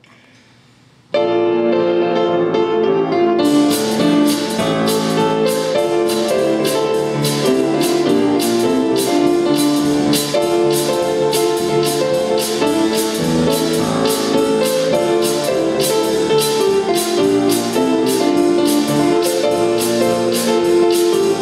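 Piano-led instrumental hymn accompaniment starts about a second in. A steady percussion beat joins a couple of seconds later and keeps going.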